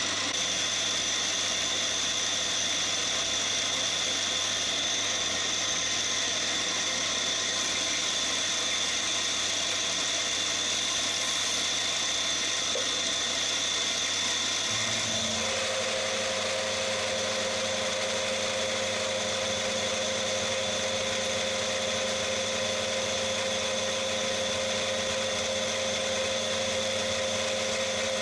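Cormak ZX 7045 geared-head mill-drill running steadily with an end mill cutting down the face of an aluminium block. About halfway through, the running sound changes as a new steady tone and a lower hum come in.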